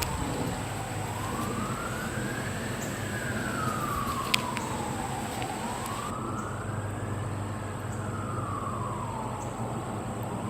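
Emergency vehicle siren on a slow wail, its pitch rising and falling twice, each rise and fall taking about four to five seconds.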